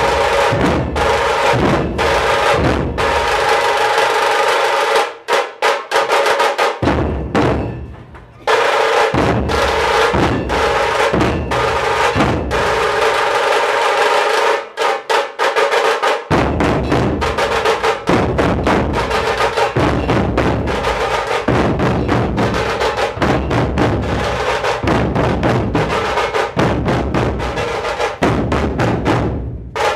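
Nashik dhol-tasha ensemble drumming loud and fast: a rapid tasha roll over heavy dhol beats. The deep dhol strokes drop out twice for a second or two, and the playing stops near the end.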